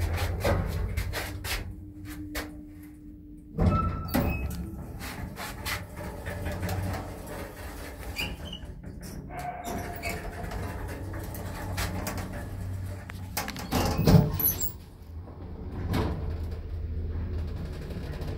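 Elszyk passenger lift car travelling between floors: a steady low hum with scattered clicks and knocks, the loudest knocks about four seconds in and again about fourteen seconds in.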